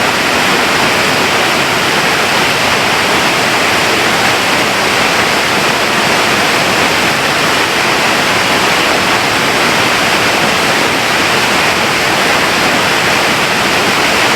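Waterfall running low after a long dry spell: a steady, even rush of falling water.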